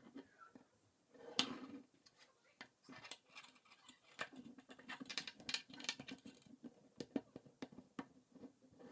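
Plastic K'NEX rods and connectors clicking and rattling as they are handled and snapped together, a run of irregular small clicks and knocks.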